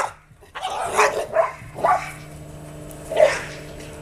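Dogs barking in play: a few short, sharp barks after a brief hush, then one loud bark about three seconds in, over a faint steady hum.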